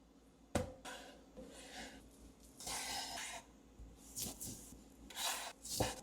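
Kitchen handling sounds: a sharp knock about half a second in, then several short scrapes and rubs, one lasting nearly a second, of utensils and cookware being worked.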